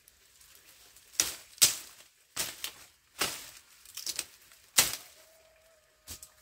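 A series of sharp, irregular knocks or clacks, about eight to ten of them, sometimes two or three in quick succession.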